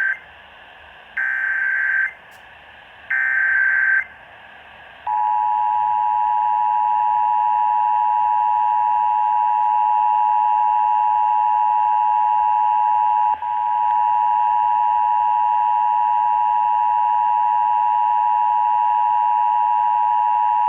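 Emergency Alert System signal received over AM radio. First come two roughly one-second bursts of the digital header data, screeching beeps a second apart. About five seconds in, the steady two-tone attention signal starts, a harsh dual tone held unbroken apart from a brief dip about thirteen seconds in. This is the start of a Required Monthly Test.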